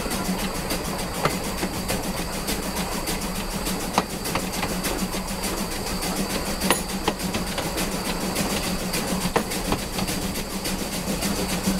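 Steam locomotive Spreewald running along the track on its uphill climb: a steady rumbling run with a few sharp clicks at uneven intervals as the wheels pass over rail joints.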